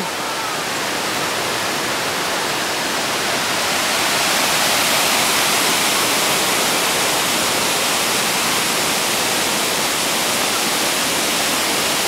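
Steady rushing of the Probiy waterfall on the Prut river: a dense hiss of falling water that grows a little louder about four seconds in.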